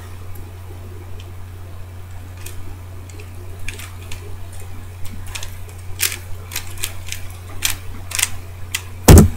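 DaYan ZhanChi 3x3 speed cube being turned quickly, its plastic layers clicking at irregular intervals, over a steady low hum. A loud thump about nine seconds in.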